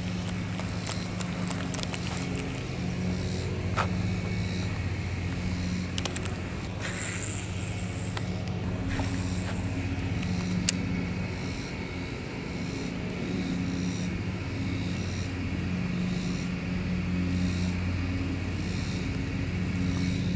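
Steady low engine hum that swells and fades every second or so, with a couple of sharp clicks.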